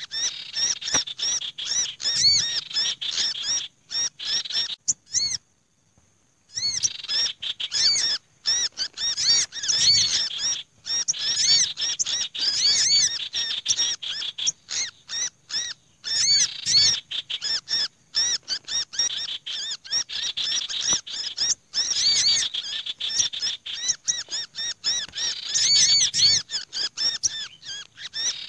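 A bird-lure recording layering the noisy, agitated distress and alarm calls of several small songbirds, including a sunbird and a black-naped monarch, meant to draw wary small birds down. It is a dense run of rapid high chirps and chattering calls, broken by a silence of about a second near six seconds in.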